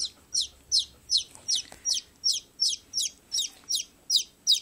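Baby chick peeping: a steady run of high, short peeps that fall in pitch, about three a second.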